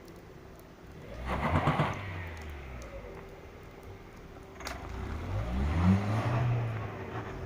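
Lada Vesta SW engine revved sharply twice, with one sharp knock between the two revs. The owner blames the knock on the muffler knocking on hard acceleration because the stock exhaust hanger rubbers are too soft.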